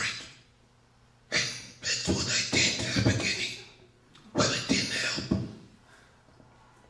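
A man speaking into a handheld microphone held close to his mouth, in two stretches with short pauses between.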